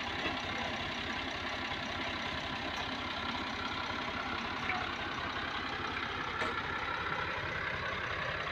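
Diesel tractor engine running steadily at an even speed.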